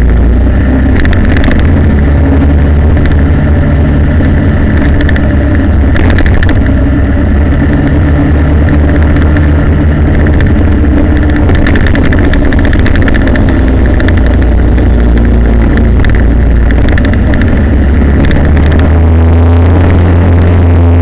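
Engine of a moving road vehicle running under way, its pitch shifting up and down with speed, over a heavy, loud low rumble.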